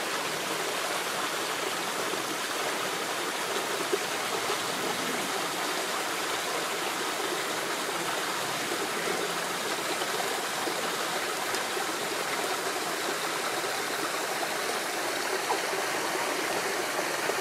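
A mountain stream rushing steadily over rocks, with one sharp click about four seconds in.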